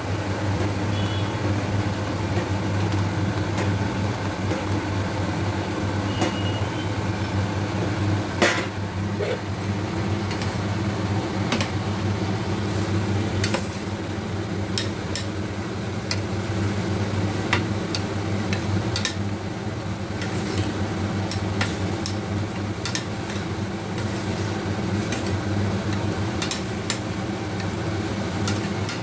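A metal spoon clinking and scraping against a steel pan as fox nuts (makhana) are stirred into a simmering gravy, with a few sharper knocks. Under it runs a steady low hum.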